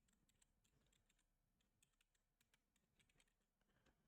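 Very faint computer keyboard typing: irregular keystroke clicks, several a second.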